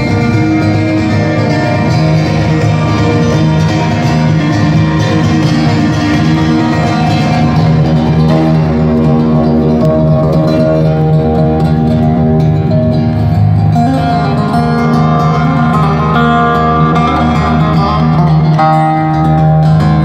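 Acoustic guitar music played through loudspeakers: a plucked melody over long held notes, continuous and steady in level.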